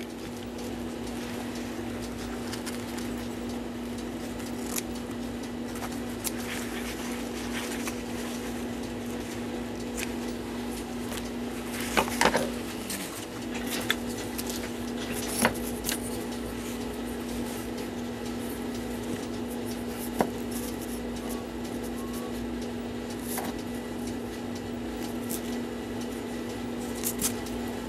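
A steady electrical hum, with scattered light clicks and taps of small bench work, the loudest a pair about twelve seconds in, as thin leather is clamped and glued onto cuckoo clock bellows.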